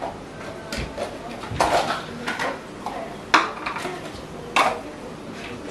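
Kitchen bowls and pots clinking and knocking together as they are handled: a series of sharp clinks, the loudest a little over three seconds in.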